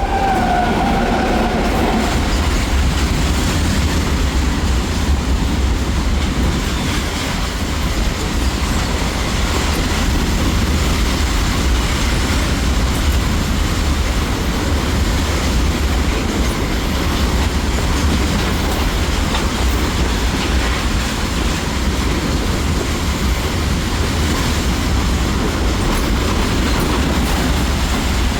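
Indian Railways passenger train running fast: a steady loud rumble with the clatter of its wheels over the rails. A brief falling tone sounds right at the start.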